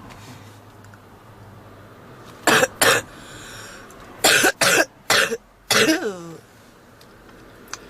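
A woman's heavy smoker's cough: two sharp coughs, a pause, then a bout of four more, the last trailing off in a falling pitch. The uploader presents it as a smoker's cough typical of smoker's bronchitis.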